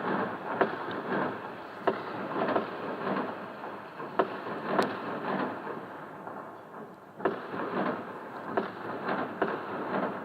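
Many fireworks going off at once at a distance: a continuous rumble and crackle with frequent sharp bangs. It thins briefly about seven seconds in, then a new run of bangs starts.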